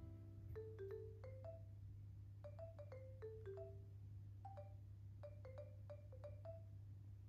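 Quiet background music of sparse marimba-like mallet notes, a few a second, each a short ringing tone, over a steady low hum.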